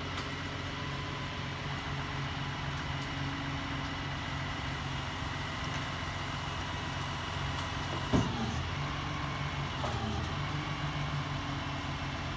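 Rollback tow truck's engine running steadily while it winches a pickup up the tilted flatbed, with a sharp clunk about eight seconds in followed by a brief falling tone.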